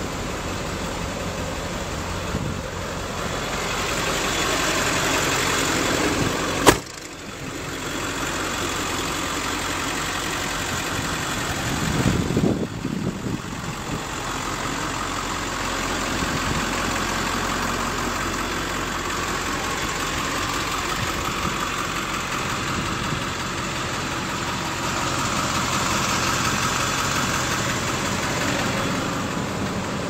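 2000 Blue Bird Mini Bird small school bus engine idling steadily, with one sharp knock about seven seconds in.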